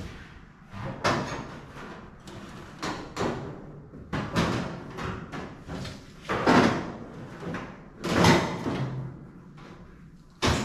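Sheet-metal knocks and clunks as the replacement roof skin is handled and settled onto the car's body shell: a string of irregular knocks that ring on briefly, the loudest about six and eight seconds in, and a sharp one near the end.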